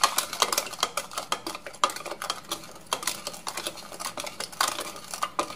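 Wooden spoon stirring a thin oil-and-vinegar sauce in a plastic measuring cup, knocking and scraping against the cup's sides in rapid, irregular clicks.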